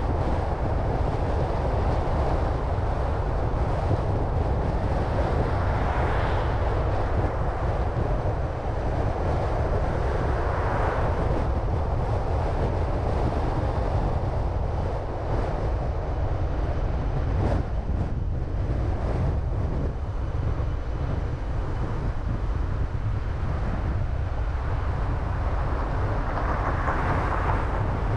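A car driving: steady low road rumble with wind noise, the hiss swelling briefly about three times.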